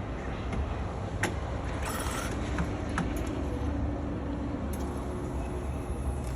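Schaerer Coffee Art Plus espresso machine brewing a single coffee after grinding: a steady low pump hum with a few sharp mechanical clicks and a short hiss about two seconds in.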